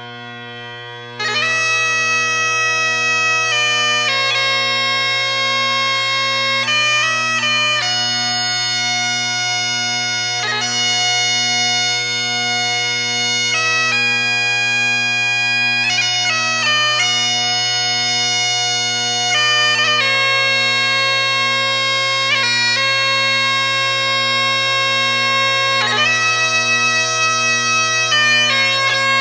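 Bagpipe music as a background track: steady drones, with the chanter melody coming in about a second in and the music getting much louder.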